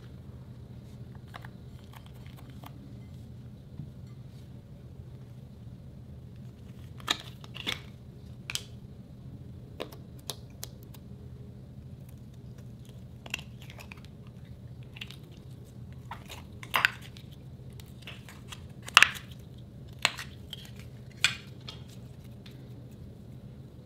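Slime sealed in soft plastic pouches being squeezed and handled: scattered short squelches and crinkles, coming thicker and louder in the second half, over a low steady hum.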